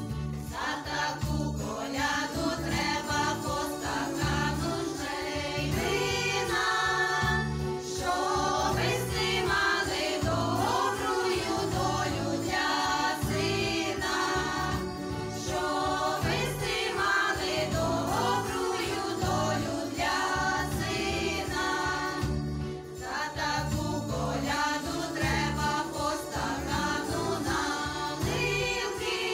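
A small group of women singing a Ukrainian koliadka (Christmas carol) together, over a keyboard accompaniment with a steady, repeating bass line.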